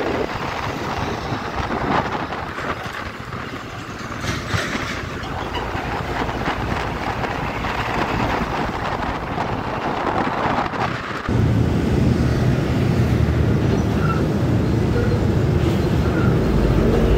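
Motorcycle riding through traffic on the open road: wind and road noise, with trucks passing close alongside. About eleven seconds in, a deep engine rumble sets in suddenly and stays loud and close.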